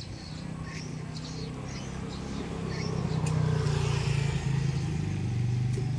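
A motor vehicle's engine running close by with a steady low hum, growing louder over the first three seconds and then holding. A few faint bird chirps sound near the start.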